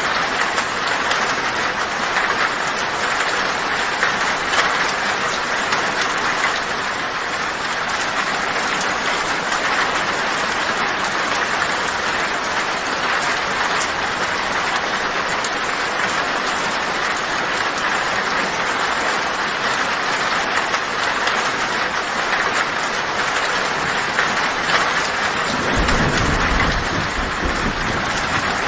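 Heavy rain drumming steadily on a tin roof, a dense patter of individual drop ticks on the metal. About 26 seconds in, a low rumble of thunder joins it.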